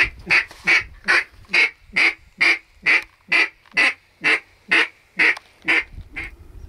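A long run of about fifteen loud mallard-style quacks, evenly spaced at roughly two a second, the last one weaker.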